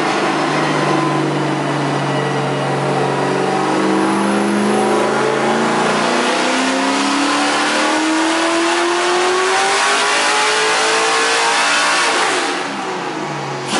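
LS V8 engine in a BMW E46 drift car running under load on a chassis dyno: it holds steady revs for a few seconds, then climbs steadily through the rev range in a dyno pull and backs off near the end.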